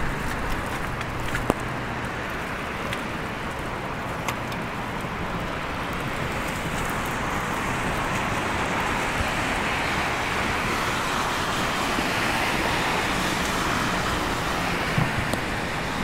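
Road traffic on a wet, slushy street: a steady hiss of car tyres through slush that swells in the second half as vehicles pass, with a few faint ticks.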